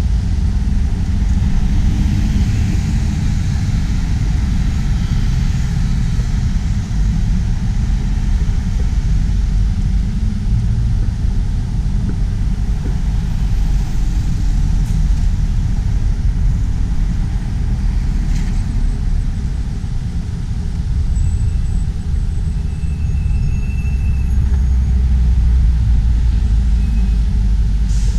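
Steady low rumble of road traffic, with a few faint short high tones in the second half.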